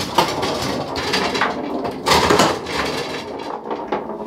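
Foosball table in play: metal rods sliding and rattling in the wooden cabinet and plastic figures knocking the ball, a steady clatter with a louder knock about two seconds in.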